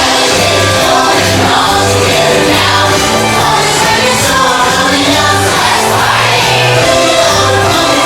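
Parade show music with a choir singing over a steady, repeating bass line.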